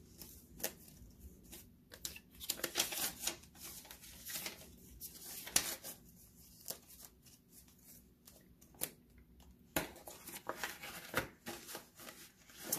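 Paper banknotes rustling and a clear plastic binder pouch crinkling as the cash is handled and put into it, with scattered light clicks and taps.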